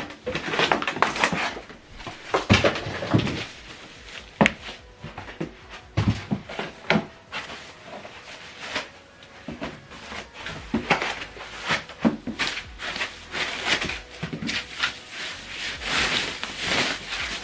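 Unboxing handling noise: irregular rustling and scraping of cardboard and packaging, broken by sharp knocks and clunks as parts are lifted out and set down.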